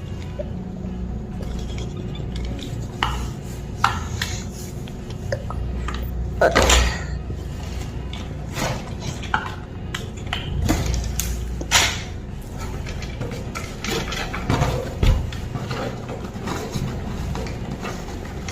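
Irregular clicks and clattering of small hard objects, over a steady low rumble.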